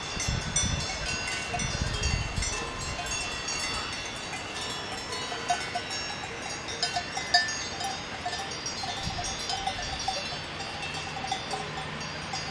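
Bells on a herd of grazing alpine cattle clanking irregularly, with many overlapping high ringing tones. There are low rumbles during the first couple of seconds.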